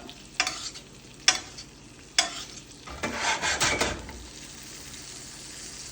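Ribeye steak sizzling in a frying pan. Sharp metal clicks of a utensil against the pan come three times in the first couple of seconds, then a busier stretch of scraping and clatter about three seconds in.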